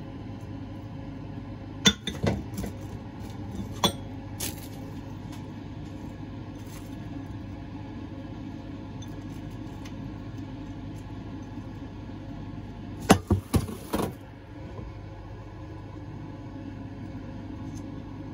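Ceramic bowls clinking and knocking as sliced vegetables are tipped from a small bowl into a larger one: a cluster of sharp clinks about two to four seconds in and another around thirteen to fourteen seconds, over a steady low hum.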